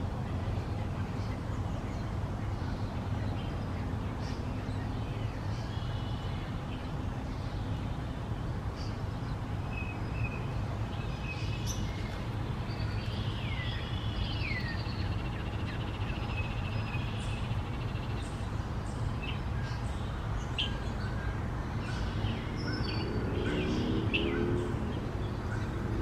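Scattered short, high bird chirps and calls, including a couple of downward-sliding calls about halfway through, over a steady low rumble that is the loudest sound.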